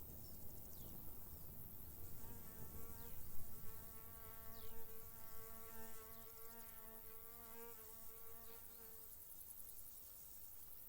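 A flying insect buzzing past with a steady, slightly wavering hum, from about two seconds in until it fades near nine seconds. Under it, a steady high chirring of field crickets and a few short, faint, descending chirps.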